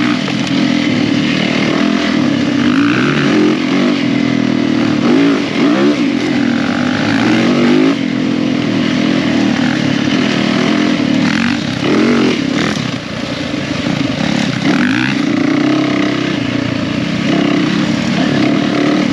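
Yamaha 450cc four-stroke single-cylinder dirt bike engine running under load, revving up and down repeatedly. The throttle eases off briefly about thirteen seconds in.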